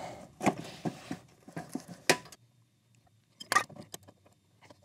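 Metal clicks and clinks of an adjustable wrench and a brass quick-connect fitting being fitted to a pressure washer pump's port: a run of sharp clicks in the first two seconds, a short pause, then a louder clink about three and a half seconds in.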